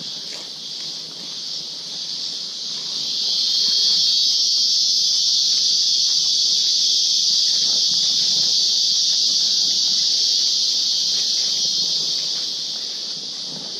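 Insects in the forest keep up a loud, steady, high-pitched buzzing drone that swells about three seconds in and eases off near the end. Underneath are soft footsteps on the leaf-littered trail.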